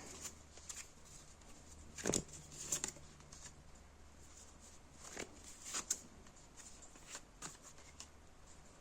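Tarot cards being handled on a table: a few soft, short taps and slides, spaced out over faint room tone.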